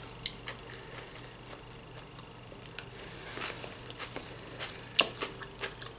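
Quiet eating sounds: a fork clicking against a salad bowl, then soft chewing, with a few sharp clicks, the sharpest about five seconds in.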